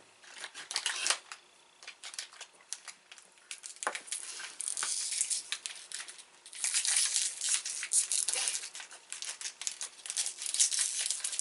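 Crinkly plastic wrapping of a KitKat snack pack being torn open and handled, a run of crackling rustles and tearing that comes in bouts, loudest a few times along the way.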